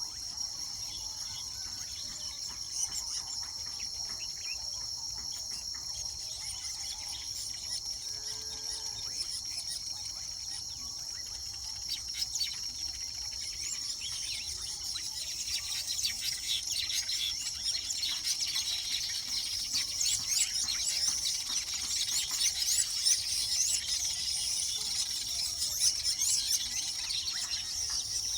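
Weaver birds chattering in a colony with many quick, rapid chirps that grow busier and louder about halfway through, over a steady high-pitched insect drone.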